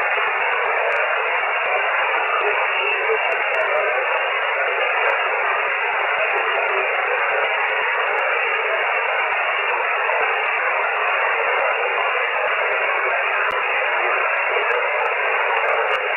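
Shortwave amateur radio receiver in voice (single-sideband) mode putting out steady hiss. The hiss is squeezed into a narrow, telephone-like pitch range, with no station readable through it.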